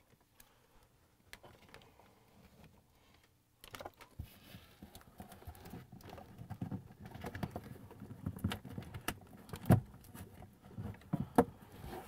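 Wiring and plastic connectors being handled and pulled inside a cabinet: scattered soft rustles and small clicks, beginning a few seconds in, with a couple of sharper clicks in the last few seconds.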